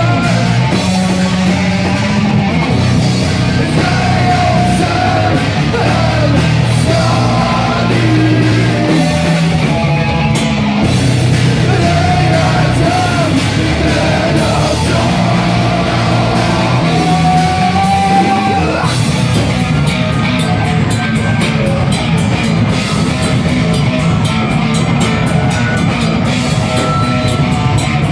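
Live rock band playing loud, with a singer's vocals over the band.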